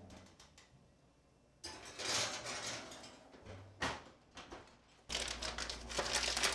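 A glass casserole dish slid onto a metal oven rack with a scraping rattle, then an oven door shut with one sharp clunk. About five seconds in, a steady low hum with rustling over it starts suddenly.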